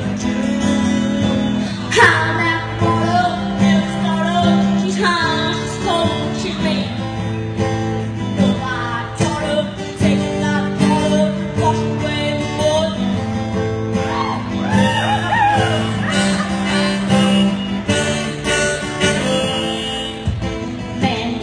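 Instrumental break: acoustic guitar strumming chords while a harmonica plays the melody over it, with bending notes.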